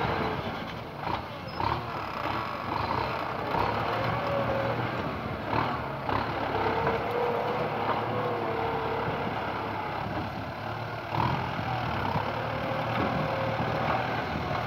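Large Kubota diesel tractor running steadily under load as it pulls a disc plough through dry, cloddy soil, with scattered knocks and an on-and-off wavering squeal.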